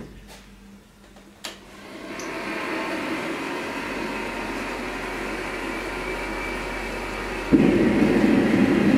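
Propane gas forge being lit: a sharp click, then the burner's steady rushing noise builds about two seconds in and holds, jumping much louder and deeper about seven and a half seconds in.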